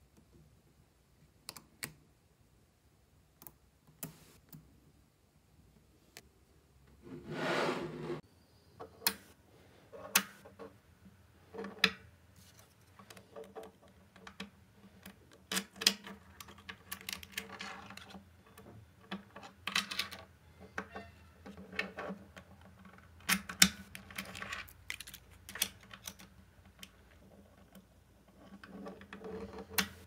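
Small magnetic balls clicking and snapping together as they are placed, a few lone clicks at first, then a rattling run of balls about seven seconds in, followed by frequent clicks and light clatter.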